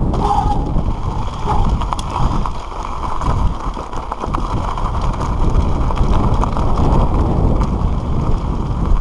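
Giant Reign mountain bike descending a dirt trail at speed: heavy wind buffeting on the camera microphone over the tyres rolling on dirt and stones, with scattered clicks and knocks from the bike.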